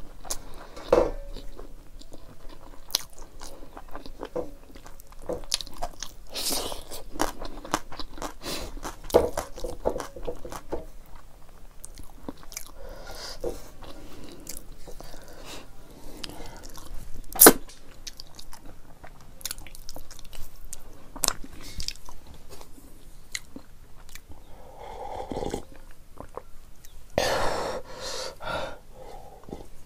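Close-up mukbang chewing, lip-smacking and crunching of rice and buff sikuti (buffalo meat) eaten by hand, with many scattered sharp clicks. A louder noisy stretch comes near the end.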